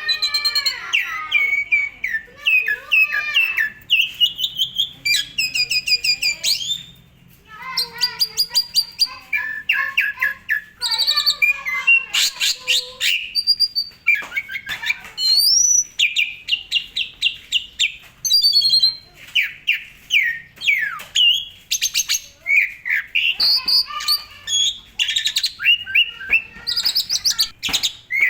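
Asian pied starling (jalak suren) singing a long, varied song: whistles that slide up and down, fast rattling trills and harsh chattering phrases, with only brief pauses.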